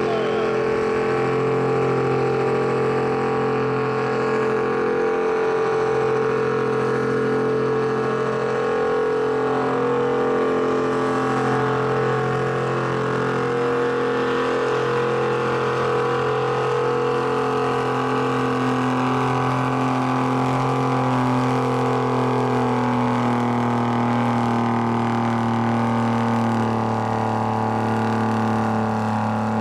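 Farm stock pulling tractor's diesel engine running loud and steady, with a constant drone.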